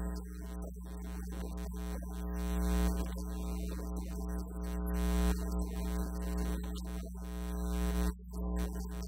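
Steady low mains hum with a buzz of evenly spaced overtones, as from a sound system's electrical hum, swelling and dipping a little in level.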